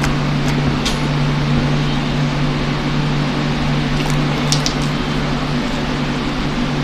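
A steady machine hum over an even hiss, with a few faint clicks.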